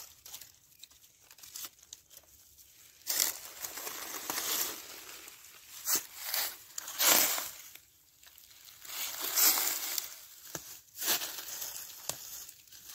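Dry fallen leaves crackling and rustling as wild greens are pulled up by the roots from the leaf litter, in a series of short, irregular bursts.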